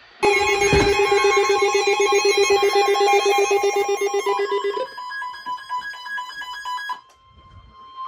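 Several NOAA weather alert radios sounding their warning alarms together: a fast-pulsing alarm over the broadcast's steady high warning alarm tone. The pulsing alarm stops about five seconds in, and the steady tone cuts off about two seconds later, signalling an incoming severe thunderstorm warning.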